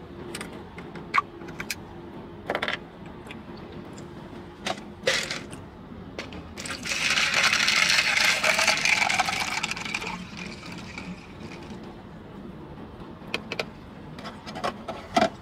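Lemonade poured from a plastic bottle over ice into a plastic cup: a splashing pour of about three seconds starting about seven seconds in, rising slightly in pitch as the cup fills. Light clicks and taps come before and after the pour.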